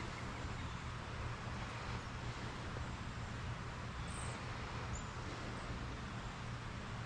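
Steady rush of river water flowing over rocks, an even hiss with no break.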